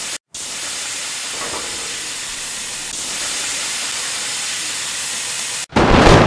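Lit dynamite fuse hissing steadily as it burns down, followed near the end by a loud explosion.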